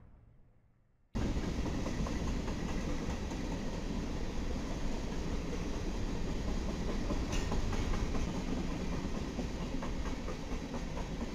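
Freight train of covered hopper cars rolling past, a steady rumble and rattle of wheels on rail that starts suddenly about a second in.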